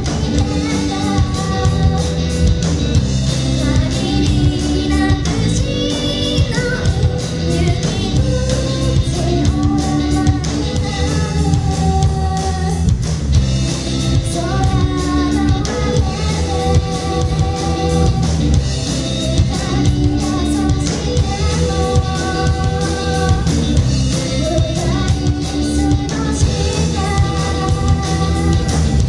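Live rock band playing a song: a singer over electric guitar and a drum kit.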